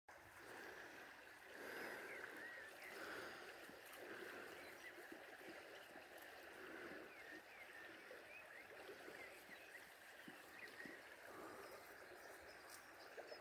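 Faint riverside ambience: a soft, steady rush of moving water with scattered faint short chirps through it.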